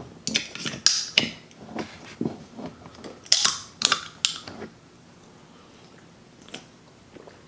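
A can of Red Bull being opened: a quick series of clicks and taps on the can, then the tab cracks open with a short fizzing hiss about three seconds in, followed by a couple more clicks.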